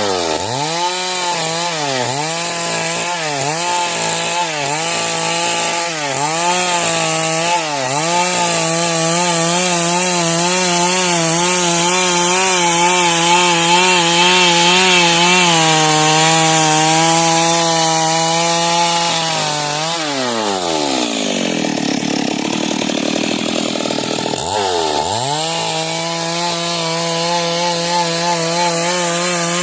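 Stihl chainsaw ripping lengthwise through wood at high revs. At first the engine dips and recovers about once a second as the chain bites, then it runs steadily at full speed. About twenty seconds in it drops to a low speed, and it revs back up about five seconds later to cut on.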